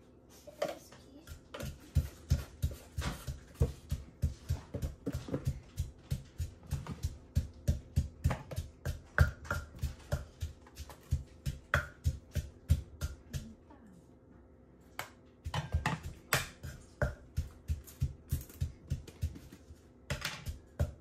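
Wooden pestle pounding in a clay mortar, crushing som tam (papaya salad) ingredients: steady thuds about three a second, stopping for about two seconds roughly two-thirds of the way through, then starting again.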